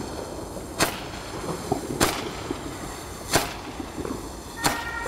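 Comet Roman candle firing, with a sharp pop about every 1.2 seconds as each star is shot out, four in all. Near the end a steady high tone of several pitches starts up.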